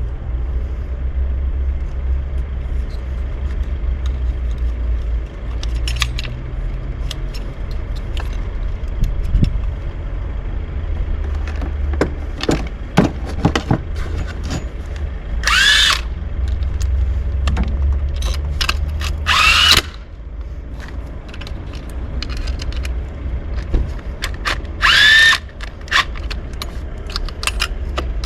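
A power drill spinning up in three short bursts, with clicks and knocks of tool handling in between, over a steady low hum.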